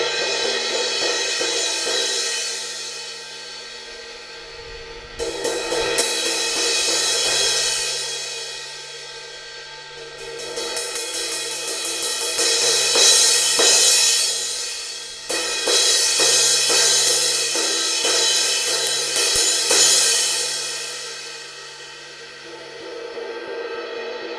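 Paiste Signature Series 18-inch Precision Crash cymbal struck again and again in several bursts, its wash swelling and fading between rounds of rapid hits and dying down near the end; this is the sound of the cymbal after its edge crack has been repaired.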